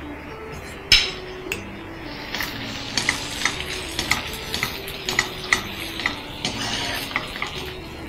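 Artichoke hearts and garlic sizzling in a frying pan, stirred with a wooden spoon that knocks and scrapes against the pan about twice a second from a couple of seconds in. A single sharper knock about a second in is the loudest sound.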